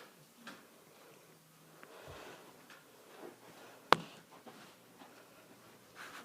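Faint rustling and scuffing of a cat playing with a string toy, with one sharp tap about four seconds in.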